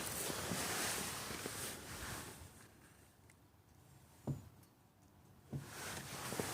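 A 2012 BMW 335i after a five-mile drive, making the noise its owner asks about as possibly normal: a steady hiss that dies away partway through and comes back near the end, with two separate short knocks in the quieter stretch.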